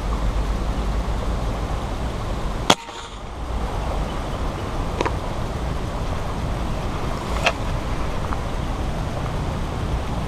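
Air rifle firing a line-tethered fishing dart: one sharp shot a little under three seconds in, over steady low background noise. Two fainter clicks follow some seconds later.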